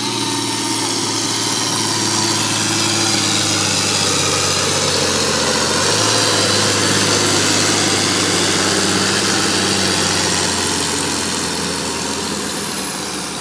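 Ford 9600 tractor's turbocharged six-cylinder diesel running hard under full load during a pull: a steady, heavy engine drone with a high whine above it, easing off near the end.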